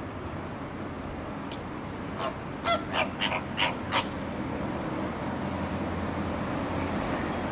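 Flamingos honking: a quick run of about six short calls about two to four seconds in, over a steady hiss of spraying water.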